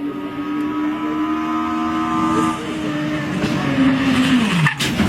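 Car engine running at steady revs, its note falling sharply about four seconds in, then cutting off suddenly.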